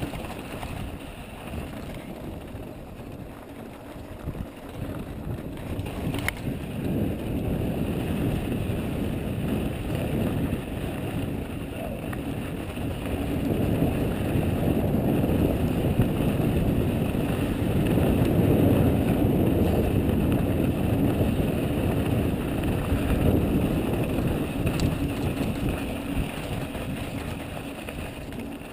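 Wind buffeting the microphone and the tyres of an Ibis Mojo mountain bike rolling over a dry dirt trail on a descent. The rush grows louder through the middle as speed picks up and eases near the end, with a sharp click about six seconds in.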